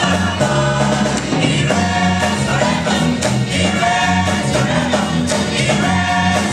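Large gospel choir singing with band accompaniment and a steady bass line.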